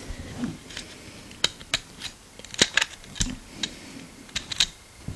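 Small sharp plastic clicks and taps, irregularly spaced, as the Victorinox SwissCard's plastic toothpick is pulled from its slot and handled.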